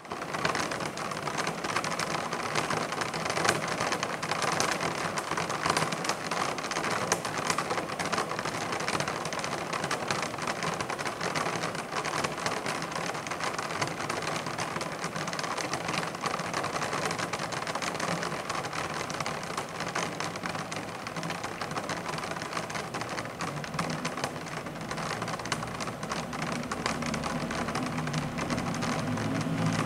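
Rain falling on window blinds: a dense, steady tapping of many drops. A low rumble of city traffic builds over the last few seconds.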